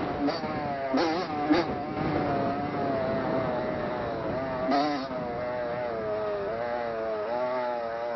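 Motocross dirt bike engine heard from an onboard camera while riding. The revs dip and climb again about a second in and near five seconds, and otherwise hold fairly steady.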